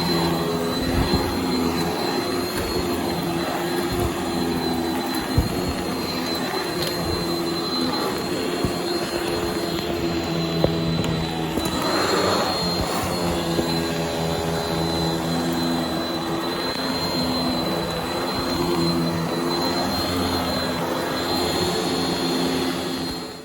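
Vacuum cleaner motor running steadily with a thin high whine over a low hum, a few light knocks, then cutting off suddenly.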